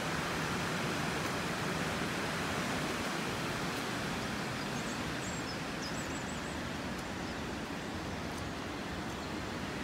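Steady rush of the river Tambre's water flowing past the stone bridge, an even hiss without pitch, with a few faint high chirps about halfway through.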